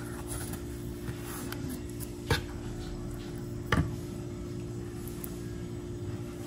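Two short clinks about a second and a half apart: a metal spoon knocking against the steel bowl of donut glaze. A steady low hum runs under them.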